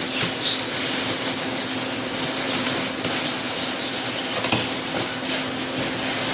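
Crinkly metallic foil gift wrap rustling and crinkling continuously as it is torn and pulled off a cardboard gift box.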